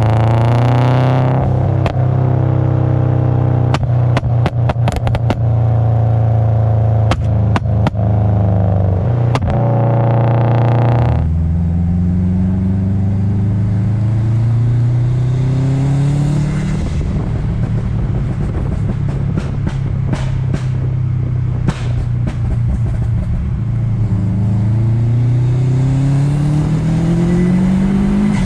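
Turbocharged Subaru Impreza WRX boxer four pulling hard several times, its engine note climbing in pitch and then dropping or cutting off sharply about a second and a half in and again about eleven seconds in. Between the pulls come runs of sharp exhaust pops and cracks.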